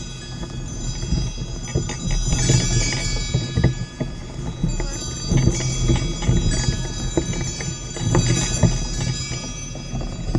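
Bells on a Shetland pony's harness jingling and ringing continuously as it walks, with soft, irregular thuds of hooves in snow underneath.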